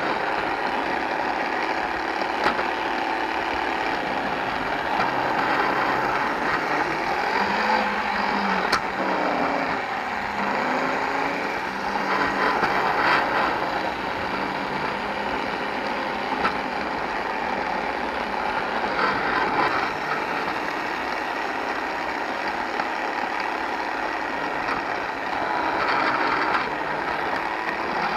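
LEGO monorail drive motor and gearing running steadily as the tram travels along the monorail track, heard very close from a camera mounted on the front of the tram, with slight rises and falls in the running noise.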